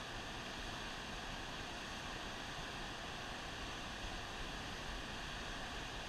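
Steady rush of turbulent water flowing out below a dam.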